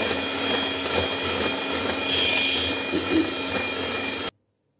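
Electric hand mixer running steadily, its beaters whipping chocolate cream in a glass bowl. The motor whirs at a constant speed, then cuts off suddenly near the end.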